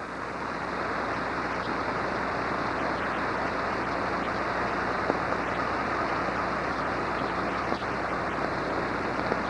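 Steady rushing of a flooded, swollen river.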